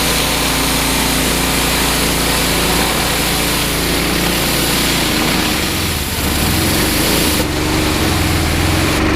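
A 14 hp Loncin petrol engine driving a pressure washer runs steadily under load, with the loud hiss of high-pressure water spraying through a rotary surface cleaner. The engine note changes about six seconds in, and the spray hiss dips briefly near the end.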